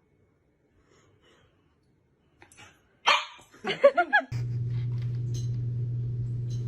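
A dog barks and yelps several times in quick succession about three seconds in, after near silence. A steady low hum then starts and runs on.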